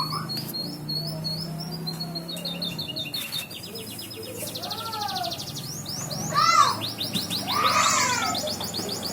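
Domestic canary singing: fast trills and rolls, with louder down-sweeping chirps about two-thirds of the way in. The song is not yet full and open ('belum plong'), as the keeper judges it.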